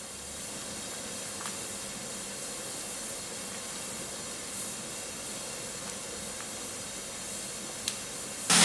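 Large pot of stew boiling hard, giving a steady hiss of steam, with a couple of faint ticks. Music cuts in right at the end.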